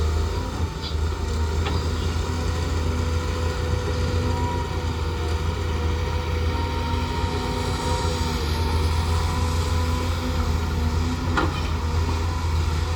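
Cat 323 GC hydraulic excavator's diesel engine running steadily, with steady tones riding over the low drone and a couple of short, light knocks.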